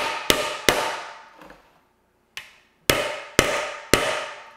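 Hammer blows on the axle end of a Profile Elite BMX front hub, driving the second bearing into the hub shell. Three quick strikes, a pause with one light tap, then three more strikes about half a second apart, each leaving a short metallic ring.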